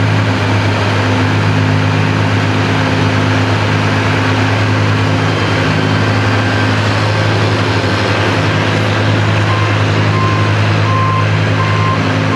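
Antique Oliver tractor's engine running hard and steady under load as it pulls the sled down the track. Near the end a short beep starts repeating, about one and a half times a second.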